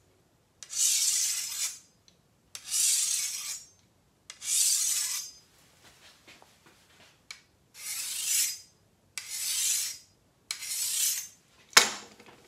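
DMT diamond sharpening stone scraped along the edge of a carbon steel machete: six long scraping strokes of about a second each, three, then a short pause, then three more. A sharp knock comes near the end.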